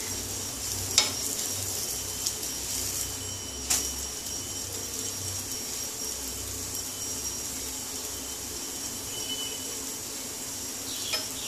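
Dosa batter sizzling steadily on a hot flat pan, with a few sharp taps of a steel spatula against the pan.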